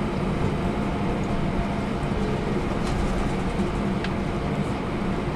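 Steady cabin noise of a jet airliner taxiing, its engines at idle, heard from inside the cabin as a low hum under an even rush, with a couple of faint clicks about halfway through.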